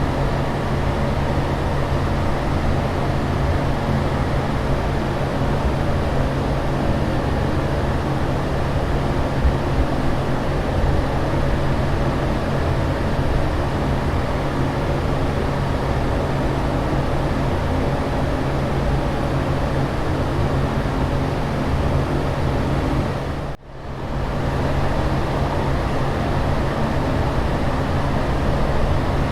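Steady airplane-cabin drone: an even rushing noise with a constant low hum underneath. About 24 seconds in it cuts out for an instant and fades back in.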